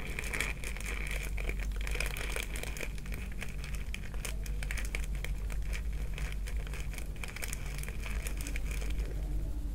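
Crinkling and crackling, a dense run of small clicks, as a little fish attractant is sprinkled onto a carp-bait mix in a plastic bowl; it stops about nine seconds in.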